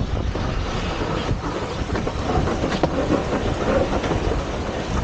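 Madeira wicker basket toboggan sliding downhill on its wooden runners over the paved road, a steady rumbling scrape.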